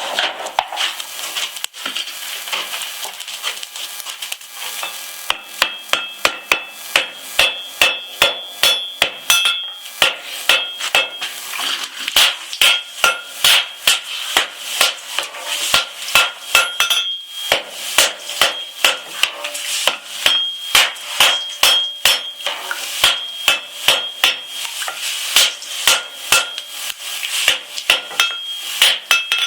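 Hand hammer striking a steel knife blade on an anvil, each blow with a bright metallic ring. The blows come lighter and uneven at first, then from about five seconds in settle into a steady run of about two a second.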